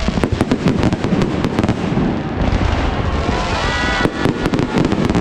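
Many fireworks going off at once: a dense run of sharp cracks and bangs over a continuous low rumble, thickest in the first two seconds.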